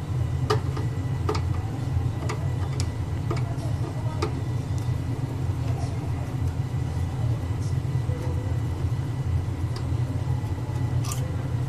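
Steady low machine hum with scattered light clicks and taps of hardware being handled while a hard drive is taken out of a server.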